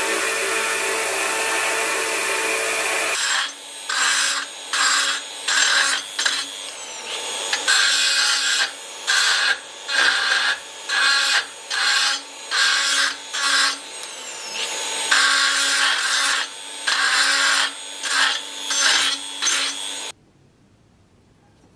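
Belt grinder running with steel pressed against the belt, then a handheld rotary tool with a carbide burr cutting into a steel dagger guard in short strokes, roughly one a second, the motor whirring between them. It stops abruptly near the end.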